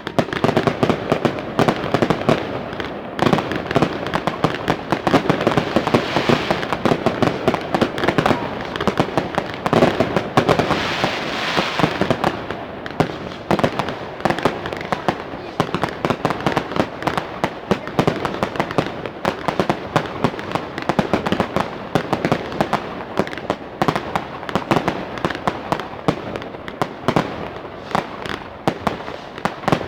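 Fireworks display: a rapid, continuous barrage of bangs and crackles, densest and hissiest around ten to twelve seconds in.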